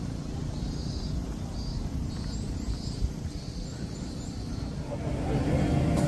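Outdoor ambience on a phone microphone: a steady low rumble with faint, short high chirps repeating every half second or so. About five seconds in, the chatter of a crowd swells up.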